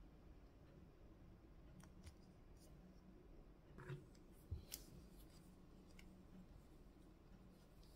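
Near silence with a few faint clicks and light knocks of plastic toy figures being handled and set down on a table, the loudest about four to five seconds in.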